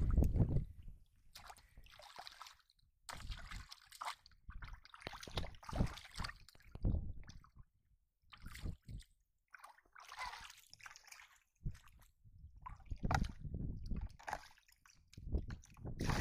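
Shallow muddy water splashing and sloshing in irregular bursts as a large fish is wrestled by hand and pushed toward a plastic bucket, with brief gaps between the bursts.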